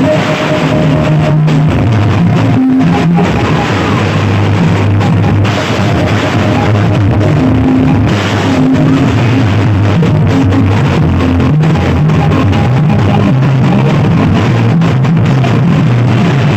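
Loud music with drums, guitar and strong bass notes, played at high volume through a miniature sound system during a sound check.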